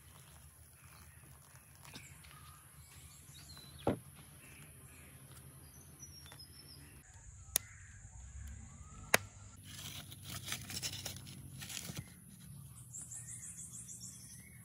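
Crows cawing and other birds calling faintly over quiet outdoor ambience, with three sharp knocks, the last and loudest about nine seconds in.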